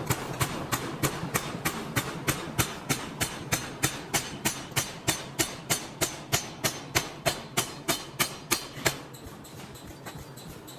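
Forging hammer striking metal in a steady, fast rhythm, about three and a half blows a second, over a steady factory hum. The blows stop about nine seconds in.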